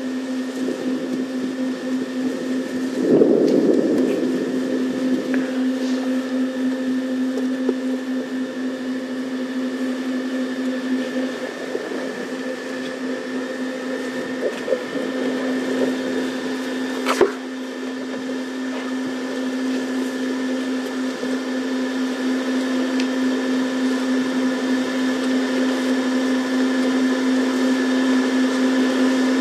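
Safari game-drive vehicle's engine running with a steady hum. There is a brief louder rumble about three seconds in and a sharp click a little past halfway.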